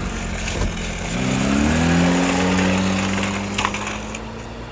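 Simulated car engine sound revving up: the pitch rises about a second in, then holds at a steady hum that fades towards the end.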